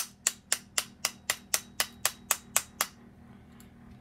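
Light, rapid metal-on-metal tapping, about four taps a second, stopping about three seconds in: a tool driving the camshaft of a Toyan FS-L400 model engine through a tight-fitting bearing into the head.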